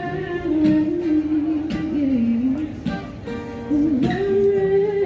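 Music: a voice singing a slow melody of long held notes over a plucked acoustic guitar.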